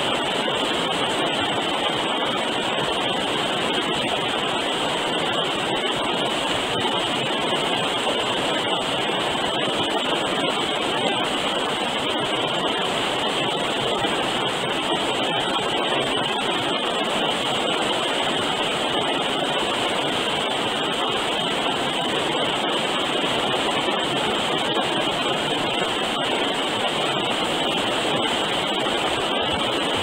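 River water rushing steadily over rapids and rock ledges, a constant even roar, with a steady high-pitched band of crickets above it.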